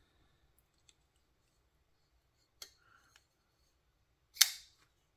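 Twosun TS351 folding knife's blade being worked open and shut: a light click about two and a half seconds in, then a sharp, loud snap with a brief ring near the end.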